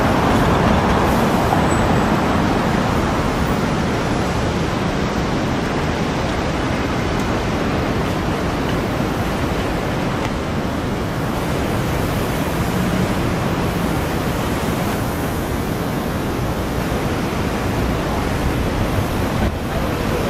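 Steady traffic noise of a busy city street, with cars and taxis passing and no single sound standing out.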